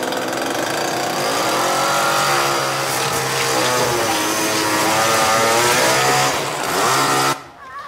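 Two-stroke chainsaw running loudly, its revs rising and falling unsteadily. It cuts off abruptly near the end.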